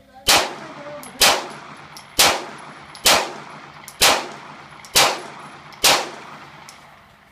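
Semi-automatic pistol fired seven times at a steady pace, about one shot a second. Each loud crack is followed by a short ringing echo.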